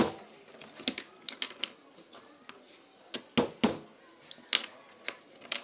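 Small hammer tapping on plastic bottle caps: a string of sharp, irregular taps, the loudest two coming close together about three and a half seconds in.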